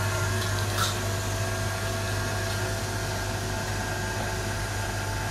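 KitchenAid stand mixer running with its metal meat grinder attachment, a steady motor hum as raw chicken is fed in and ground. A brief click comes about a second in.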